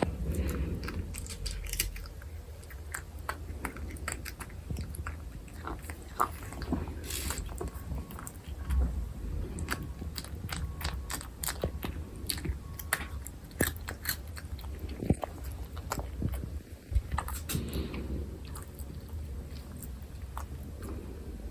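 Close-up eating sounds: food being bitten and chewed, with irregular crunchy bites and wet mouth clicks.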